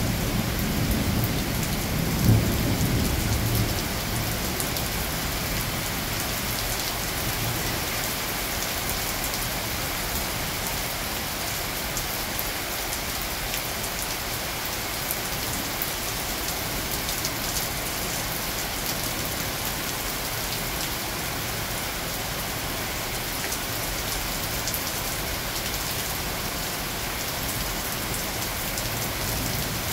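Steady rain falling on garden foliage and lawn during a thunderstorm, with a low rumble of thunder, sharpest about two seconds in, that dies away by about four seconds in.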